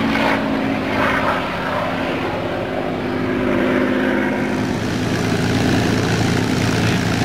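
P-51D Mustang's Packard Merlin V12 engine and propeller running, the engine note sliding slightly lower as the fighter flies past. About five seconds in, it gives way to a steadier, deeper drone of the engine running close by on the ground.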